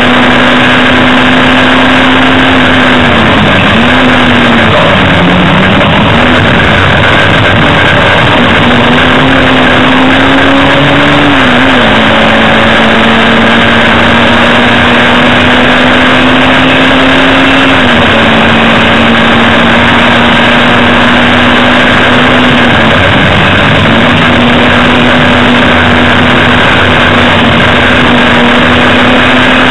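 Hillman Imp race car's rear-mounted four-cylinder engine running hard under racing load, heard loud from inside the cabin. Its note holds a mostly steady pitch, dipping and climbing back about four seconds in, again around twelve, eighteen and twenty-three seconds in, as the driver comes off the throttle or changes gear.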